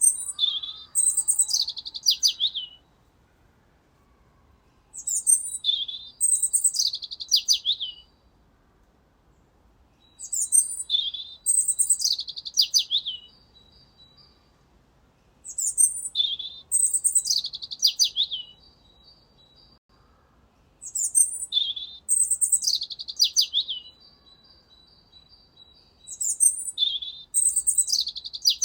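A bird singing the same high-pitched song phrase over and over, about every five and a half seconds. Each phrase lasts about three seconds and is made of quick falling notes with a thin, steady trill between them.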